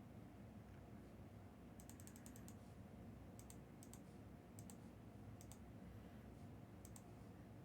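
Faint computer keyboard typing over a low room hum: a quick run of keystrokes about two seconds in, then scattered single and paired key clicks.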